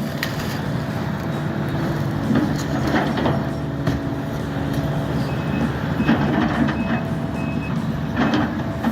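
Heavy construction machine's diesel engine running steadily, with scattered knocks and clanks. A backup alarm beeps about twice a second through the second half.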